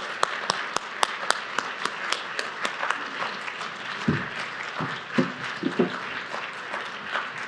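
Audience applauding, with loud, quick single claps standing out close by. A few short voice sounds come through between about four and six seconds in.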